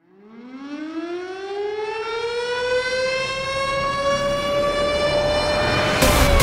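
Air-raid-style siren effect winding up at the start of a dance track, one long tone rising steadily in pitch and then holding. A drum beat comes in near the end as the siren begins to wind down.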